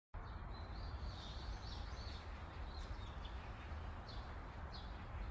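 Small birds chirping in short repeated high notes, several in quick succession in the first two seconds and then spaced out, over a steady low rumble of park ambience.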